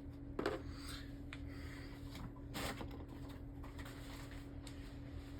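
Small hand-handling noises as stickers are worked onto the small plastic parts of a Beyblade: a few soft clicks, the clearest about half a second in and again about two and a half seconds in, with light rubbing and rustling between them.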